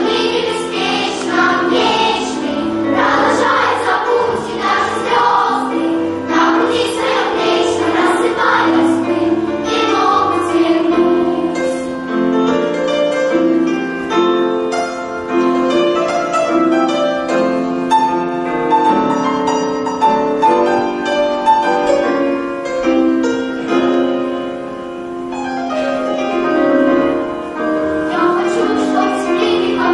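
Junior children's choir singing a song together, the voices holding and moving between sustained notes.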